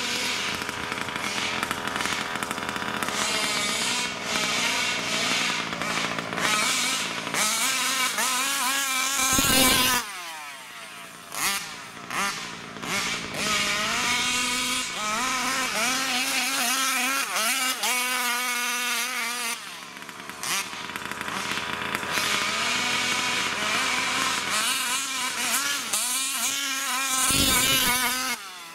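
Taylor RC big-bore petrol two-stroke engine in a 1/5-scale RC car, revving up and down again and again, dropping back between bursts. It is loudest twice: just before ten seconds in and near the end.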